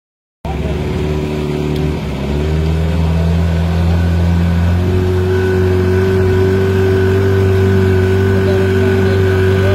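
A motorboat engine running at a steady speed; its pitch wavers for the first couple of seconds, then holds steady.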